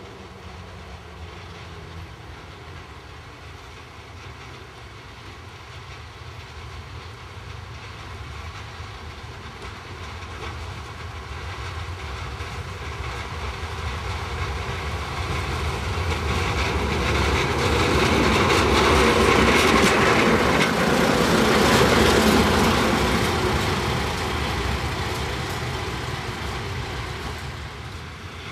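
Diesel railcar approaching along the track, its engine and wheels growing steadily louder and peaking about twenty seconds in as it passes close by, then fading as it moves away.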